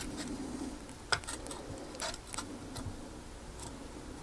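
A few light clicks and taps, spaced irregularly, as the metal cover of a car's rear wiper drive assembly is handled and pressed onto its housing; the loudest comes about a second in.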